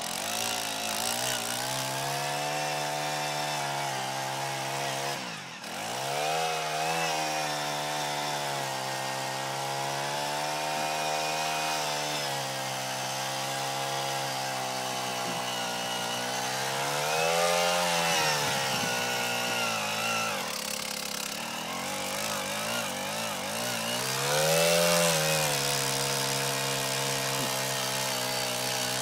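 One-man gas-powered earth auger running under load as it bores a post hole in soil, its engine speed rising and sagging as it works. The engine bogs down briefly about five seconds in, and revs up twice, near eighteen and twenty-five seconds in.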